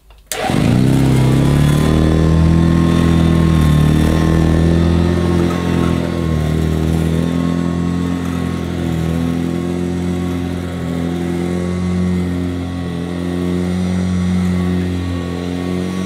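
Vintage Hoover Junior 119 upright vacuum cleaner running as it is pushed over carpet: a steady motor hum with a low drone that cuts in abruptly just after the start.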